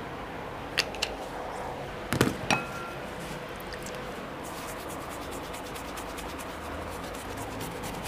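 A few sharp clicks and a ringing clink, then, from about halfway, a fast, fine scratchy swishing as a shaving brush is whisked in a bowl to work up shaving lather.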